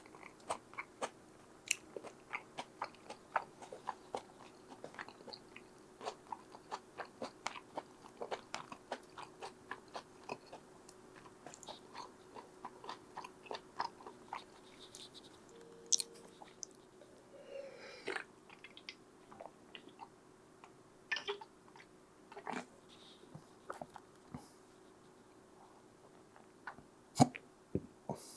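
Close-miked chewing of pizza: a quick, steady run of small wet clicks and crunches, then sparser, louder bites and crunches in the second half.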